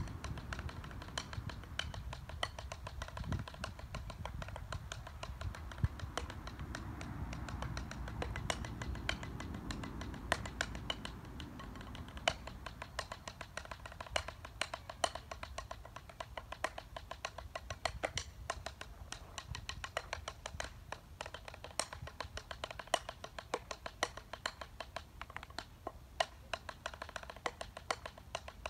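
Drumsticks tapping out fast freestyle patterns: light, sharp clicks in quick, uneven runs, with short pauses between them.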